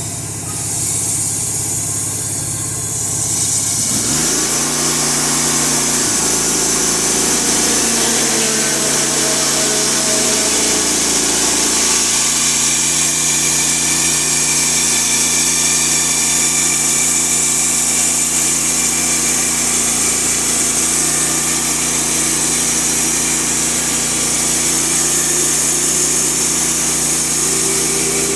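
Norwood LM2000 band sawmill's gasoline engine running. About four seconds in it picks up speed and a steady high hiss of the band blade sawing comes in over the engine, holding steady after that.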